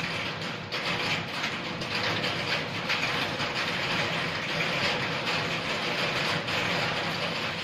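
Steady rain falling, an even hiss that swells and eases slightly.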